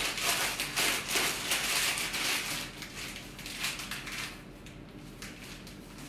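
Plastic bag crinkling and rustling as it is squeezed and handled. Loud and dense for the first couple of seconds, then softer and more scattered.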